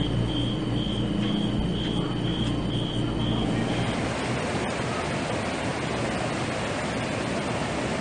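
A steady low hum with a faint high chirp pulsing about twice a second. About four seconds in it gives way to a mountain stream rushing over granite boulders in small cascades, a steady hiss of water.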